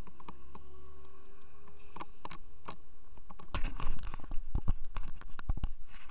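A low steady rumble, then about halfway in a run of irregular knocks, scrapes and rubbing: handling noise of hands on a small camera.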